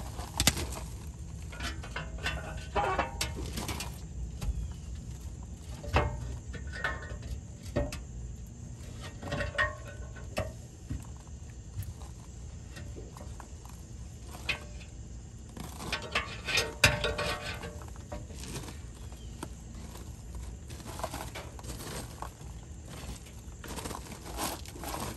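Pry bars working at the old dishpan on a Land Pride RCF2072 rotary cutter: irregular clusters of metal clanks, knocks and scrapes with pauses between, the loudest about two-thirds of the way through.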